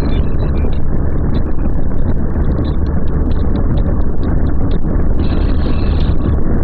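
Motorcycle riding at speed: steady engine and road noise with wind rushing over the microphone.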